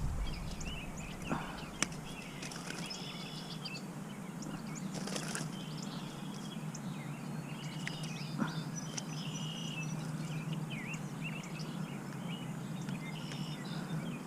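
Birds chirping and calling in short, scattered phrases, over a steady low hum and a few faint clicks.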